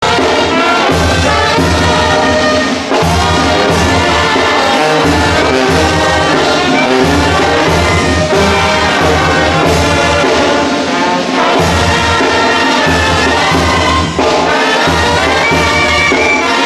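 Mexican-style brass band playing a tune, with trumpets and clarinet carrying the melody over a sousaphone's steady bass notes.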